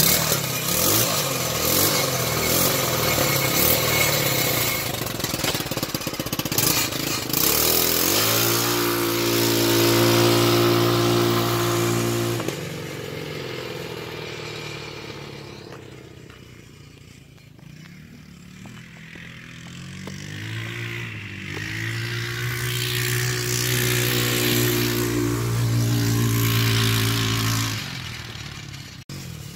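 TaoTao 150cc four-stroke ATV engine under way: the revs climb and hold steady for a few seconds, fall off, then climb and hold again before dropping back near the end. A rushing noise lies over it for the first several seconds.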